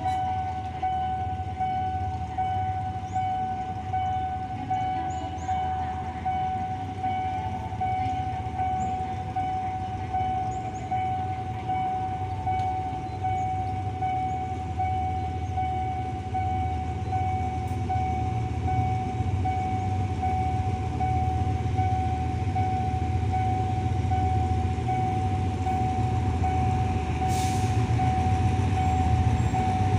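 A steady single-pitch warning tone, pulsing about once a second, typical of a railway level-crossing alarm, over the low rumble of a diesel locomotive that grows louder as it approaches. There is a short hiss near the end.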